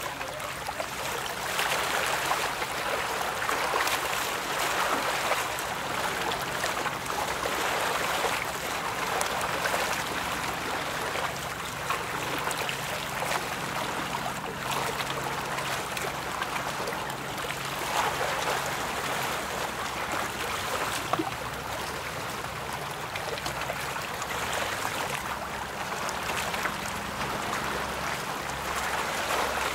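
Water rushing and splashing without a break, the bow wave of a passing cargo ship breaking along its hull, over a faint steady low hum.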